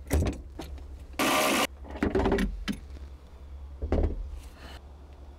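Knocks and clunks of a car battery being handled and set into its tray, with a half-second whir of a small motor about a second in and another knock near the end.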